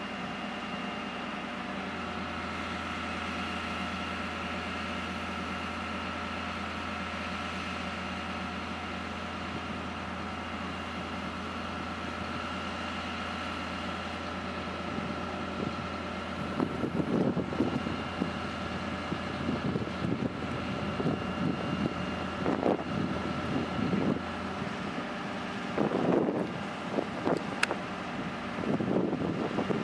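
A machine's engine runs steadily with a constant hum. From about halfway through, gusts of wind buffet the microphone.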